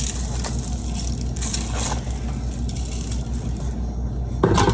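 Crinkling and rattling as seasoning containers are handled and shaken over the food, against a steady low hum.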